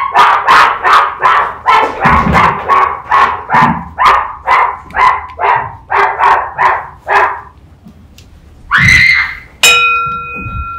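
Fast, even barking, about three barks a second for some seven seconds. Then one louder cry, and near the end a steady ringing tone comes in.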